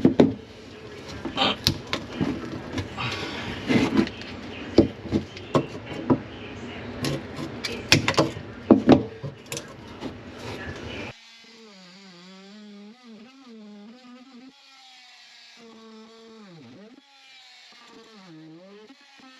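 Knocking, clattering and scraping of hand work on a wooden kitchen cabinet, many sharp knocks in quick succession. About eleven seconds in it cuts off abruptly to a quieter, steady pitched hum that wavers up and down in pitch.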